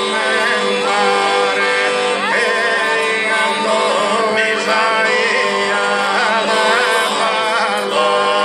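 Sardinian canto a tenore: four unaccompanied male voices singing in close harmony. The lower voices hold a steady drone while the lead voice sings a winding, ornamented melody above it.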